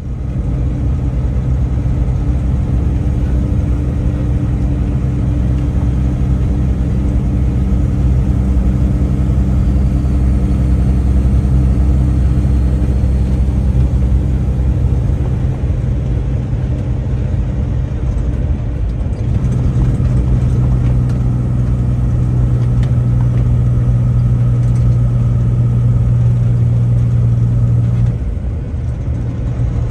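Truck engine running steadily as it drives off. Its note shifts higher about two-thirds of the way in and eases off slightly near the end.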